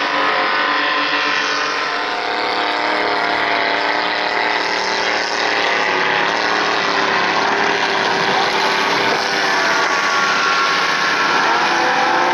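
Racing speedboat engines running hard at full speed as the boats pass, the pitch shifting up and down, over the hiss of the boats' spray. The loudest boat is a supercharged inboard-engined racing boat.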